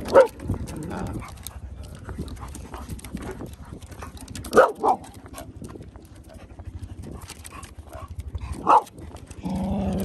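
A dog barks four times: once at the start, twice in quick succession about halfway, and once near the end, over footfalls on a wooden boardwalk.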